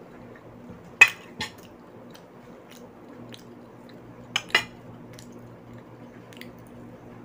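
Eating sounds at a table: a few sharp clicks and taps, the loudest about a second in and a close pair about four and a half seconds in, over a steady low hum.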